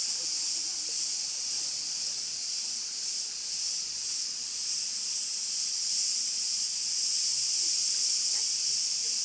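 Steady, high-pitched chorus of cicadas: an even, continuous shrill hiss with slight swells.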